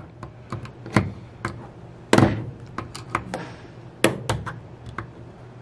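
Screwdriver working at the manual and kickdown lever assembly of a 727/904 transmission valve body: a series of sharp metal clicks and taps, the loudest about two seconds in and two more close together near four seconds.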